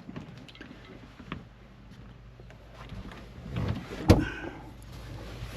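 Light knocks and handling noises inside a parked camper van, with one sharp knock about four seconds in.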